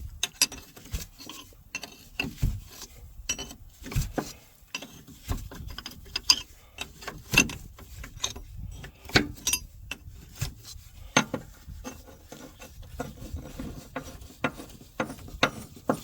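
Irregular metallic clicks, clinks and knocks of a stubby wrench working loose the hydraulic hose fittings on a skid steer's drive motor.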